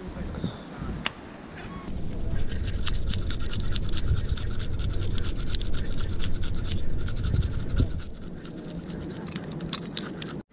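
A knife scraping the scales off a whole fish held against rock, in quick repeated strokes that start about two seconds in and ease off near the end.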